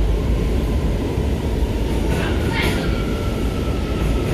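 R179 subway train running at speed, a steady low rumble of wheels on rails. About halfway in, a thin steady high whine joins it.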